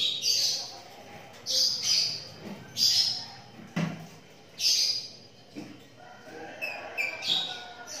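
A pair of caged lovebirds giving shrill, high-pitched chirps in short bursts, about six of them at uneven intervals, while mating. There is a single soft knock about halfway through.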